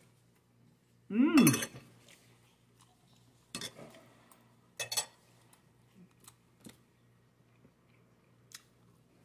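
Metal spoon and fork clinking and tapping on a glass plate while eating: a few separate clinks, the two loudest a little before and after the middle. About a second in, a short hummed vocal sound whose pitch rises and then falls.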